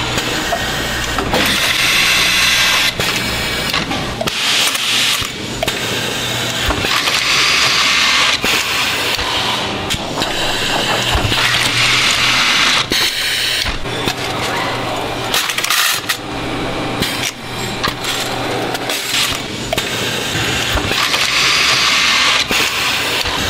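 A Visumatic VPD4-58.4 multi-spindle automatic screwdriver and its screw feeders running through production cycles. Continuous mechanical clatter and clicking is broken by repeated louder, higher rushes of noise a second or two long as screws are fed and driven.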